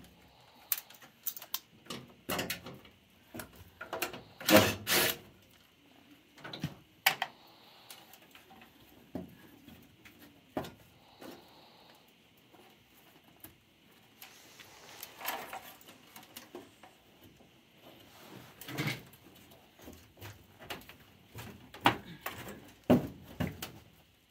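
Irregular knocks, clicks and scrapes of the sheet-metal cover plate and panels of a Bryant high-efficiency gas furnace being handled and pulled at by hand, with the heaviest knocks about five seconds in and again near the end.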